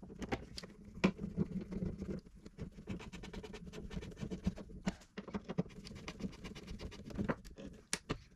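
Hand screwdriver driving screws into a third brake light housing: many quick, irregular clicks and scratching as the screwdriver tip and screw turn.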